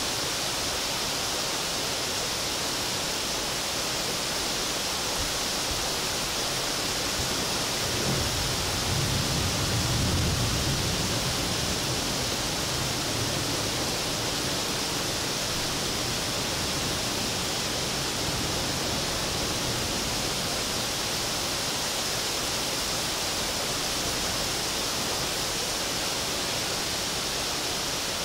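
Heavy rain pouring down in a steady, dense hiss. A low rumble swells and fades about a third of the way in.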